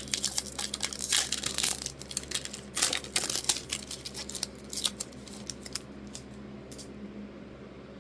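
A foil trading-card pack wrapper being torn open and crinkled, a dense crackle for about five seconds that then dies down to a few faint ticks.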